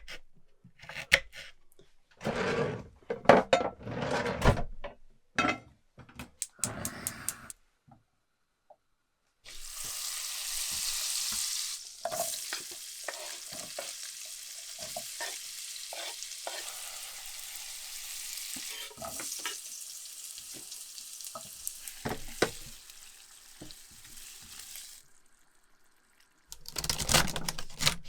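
Kitchen work with scattered knocks and scraping, then after a break food sizzling steadily in a pan with clicks of a utensil stirring, for about fifteen seconds. A louder rustling burst comes near the end.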